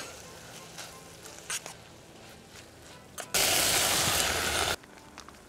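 Water poured from a ladle into a hot pot of frying minced-meat keema curry, hissing and sizzling loudly for about a second and a half before cutting off sharply. Before it, a few light clicks of a spoon stirring against the metal pot.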